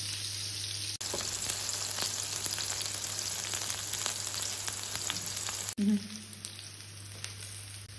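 Chicken pieces, flat green beans and red bell pepper strips sizzling in olive oil in a wide paella pan: a steady frying hiss with scattered small pops, louder for a few seconds in the middle.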